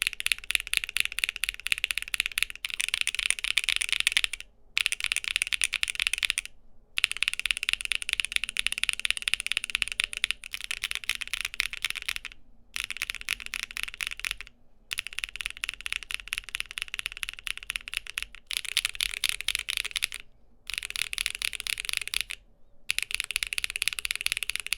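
Fast typing on a mechanical keyboard with tactile switches, a dense run of clacky keystrokes. It comes in short stretches of a few seconds, each cut off by a brief silence.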